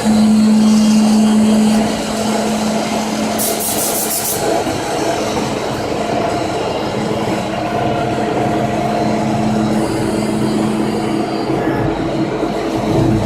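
Hydraulic press's pump unit running with a steady hum under pressing load, loudest in the first two seconds, with a short hiss about three and a half seconds in.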